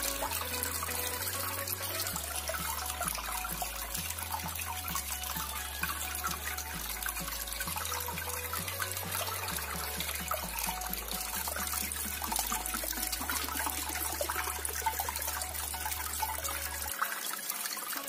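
Small cement tabletop fountain running: water streams off the rim of its umbrella top and splashes steadily into the basin below.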